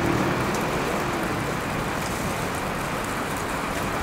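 Outdoor traffic noise at a bus station: a steady rushing hiss with a low engine hum from a nearby bus that fades out about a second in.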